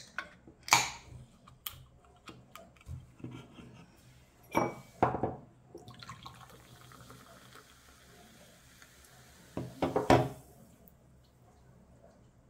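A can of fizzy orangeade opened with a few clicks and a short hiss, then poured into a glass, the carbonated drink fizzing for about five seconds from about halfway through. A few loud knocks near the end, glass and can against the tabletop.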